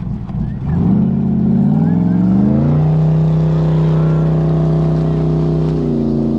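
Jet boat's LS3 V8 engine opening up about a second in, its pitch climbing for two seconds, then holding steady at speed and easing off slightly near the end.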